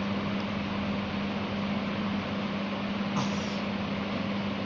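Steady whir of an electric fan motor: an even rushing noise with a constant low hum, and a brief faint tick about three seconds in.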